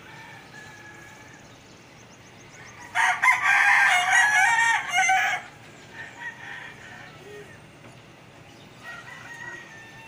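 A rooster crowing once: a single loud call of about two and a half seconds, starting about three seconds in.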